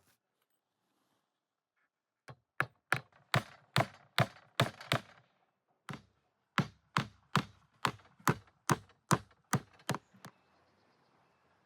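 Knife chopping on a cutting board: a steady run of sharp strokes, about two to three a second, stopping briefly near the middle and then going on for about four more seconds.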